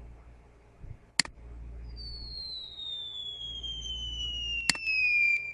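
A long whistle tone gliding steadily down in pitch for about three and a half seconds, like a falling-whistle sound effect, growing louder toward the end. A sharp mouse click comes about a second in, and more clicks come near the end.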